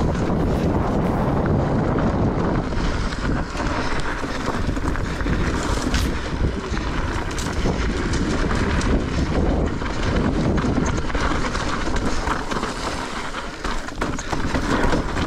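Wind buffeting the microphone as a Giant Reign E+ electric mountain bike runs down a dirt trail, with tyre rumble and scattered knocks and rattles as the bike goes over bumps.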